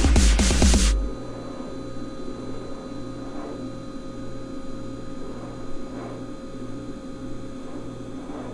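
Heavy rock music cuts off about a second in. After it comes a steady electrical-sounding hum with a low throb pulsing about one and a half times a second.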